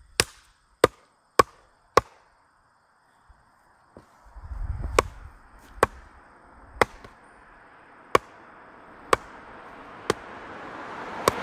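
Sledgehammer striking a wooden 4x4 post: sharp cracking blows, four in quick succession, then after a short pause six more about a second apart. The blows carry like a distant lumberjack chopping.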